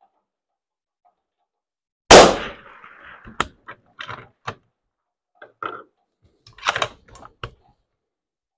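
A single .308 Win rifle shot about two seconds in, the loudest sound, ringing on briefly. Then a run of sharp metallic clicks over the next five seconds as the bolt is worked to eject the spent case and chamber the next round.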